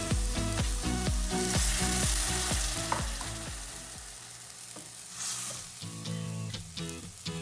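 Water poured into a hot stainless-steel pan of chicken and onion sizzles loudly, a hiss that starts about a second and a half in and lasts about a second and a half, with a shorter burst of sizzle near five seconds. A wooden spatula then stirs the pan. Background music with a steady beat plays throughout.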